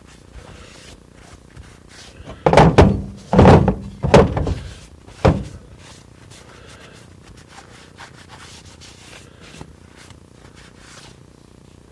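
Four heavy thunks between about two and five seconds in, as hard objects are set down or knocked on a workbench during parts cleaning.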